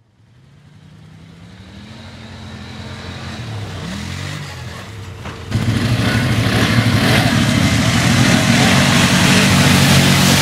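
ATV engine running, fading in with its pitch rising and falling as it revs. About five and a half seconds in, the sound jumps suddenly to much louder, an engine running hard with a lot of noise over it.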